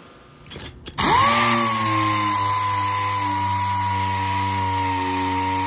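Air-powered dual-action sander starting about a second in, spinning up fast and settling into a steady high whine with hiss, as it sands orange paint off a 1932 Ford body with 120-grit paper.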